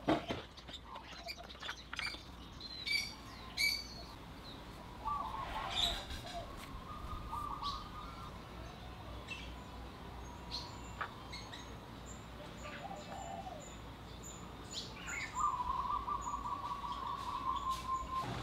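Small birds chirping and calling, with a longer trill late on. A sharp click right at the start.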